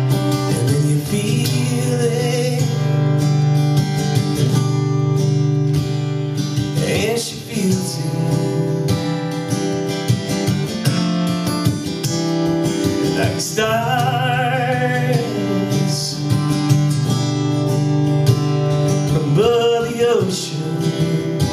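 Acoustic guitar being strummed in a live song performance, holding steady chords through an instrumental passage. A wavering melody line rises over the guitar briefly several times.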